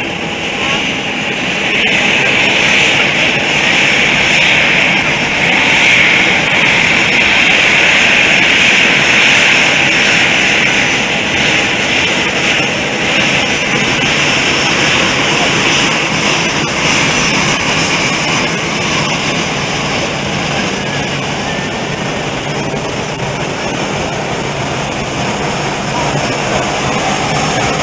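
Jet engines of an Airbus A320-family airliner taxiing past at close range: a steady high whine over a broad rumble, growing louder in the first couple of seconds, loudest while the aircraft is nearest, then easing slightly.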